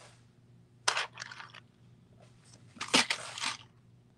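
Strands of Czech glass beads rattling and clicking against plastic tubs as they are picked up and sorted into a tray by hand: a short clatter about a second in, then a longer, louder one about three seconds in.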